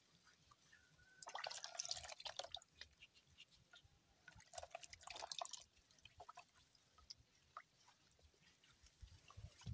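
Hands washing feet in a plastic basin of water: faint splashing and dripping, in two short bouts about a second in and around the middle, with scattered drips between.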